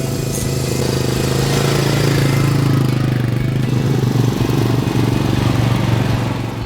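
A motor vehicle's engine running steadily and loudly, with a steady low hum and a rushing noise, cutting off abruptly near the end.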